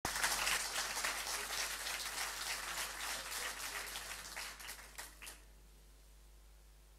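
Audience applauding, the clapping thinning to a few last scattered claps about five seconds in.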